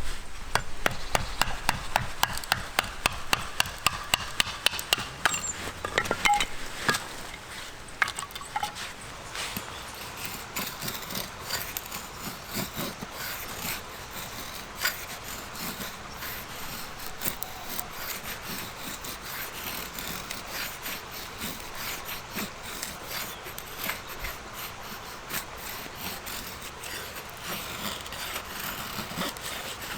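Firewood being cut with a hand saw, with quick even strokes about three a second for the first several seconds. After that come quieter, irregular scraping and rubbing sounds of wood being worked.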